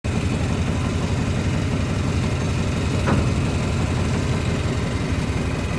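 Boat engine running steadily with a low rumble.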